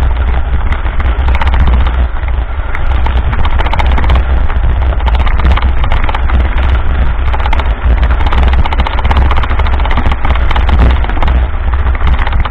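Mountain bike rolling over a rough dirt road, its frame and parts rattling with rapid clicks, while wind buffets the camera microphone with a heavy, steady low rumble.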